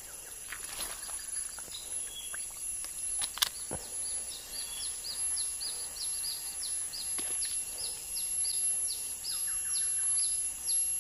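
A bird repeating a short, high, falling note about two or three times a second, over a steady very high-pitched tone. A single sharp click sounds a few seconds in.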